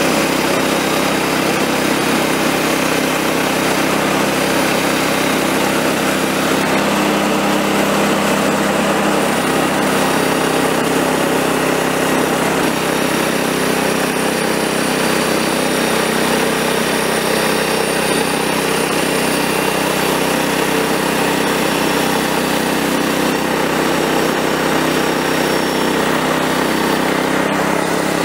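Woodland Mills HM126 portable band sawmill's small gas engine running steadily while the band blade rips a face off a log.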